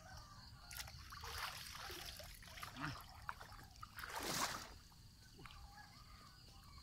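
Water dripping and sloshing as a fishing net is lifted out of a shallow pond, then splashing from wading through knee-deep water, the loudest splash about four seconds in.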